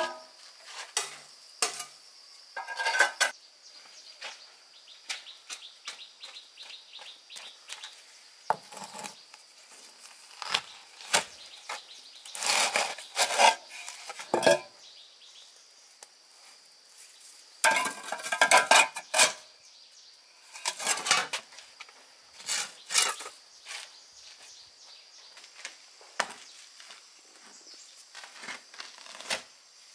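Hard objects clattering and knocking in irregular bursts, the busiest stretches about twelve and eighteen seconds in. A steady high insect buzz runs underneath.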